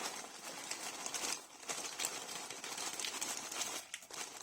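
Continuous rustling with many small clicks and taps, as food packaging is handled.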